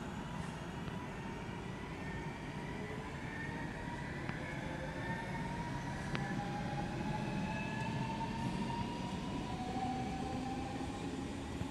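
Electric multiple-unit passenger train pulling away, its traction motors whining in several tones that rise slowly in pitch as it gathers speed, over a low rumble.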